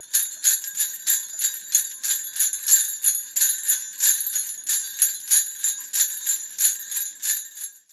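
End-card jingle of shaken bells in a steady rhythm, about three or four shakes a second, high-pitched with no bass under it.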